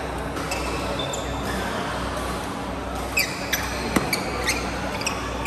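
Badminton shoes squeaking on the court mat during a doubles rally, with a sharp crack of a racket striking the shuttlecock about four seconds in, the loudest sound. A steady hum of the hall lies under it.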